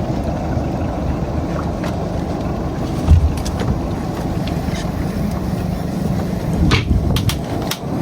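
Boat engine running steadily with a low hum, with a knock about three seconds in and a few clicks near the end.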